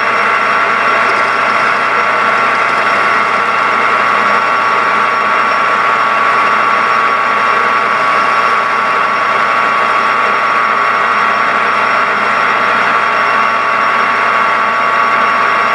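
Metal lathe running steadily, a loud even gear whine over the spindle hum, while a lathe tool faces off the end of a mild steel rod.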